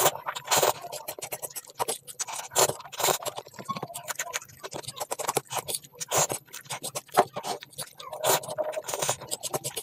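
Close-miked eating sounds: irregular wet clicks, smacks and short scrapes of food being chewed and handled.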